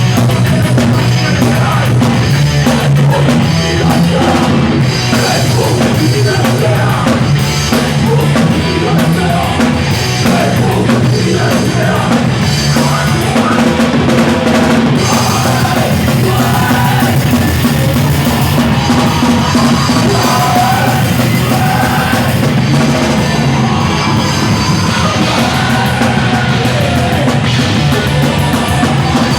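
Hardcore punk band playing live: a loud, dense wall of drum kit and distorted guitars, with shouted vocals over it from about halfway through.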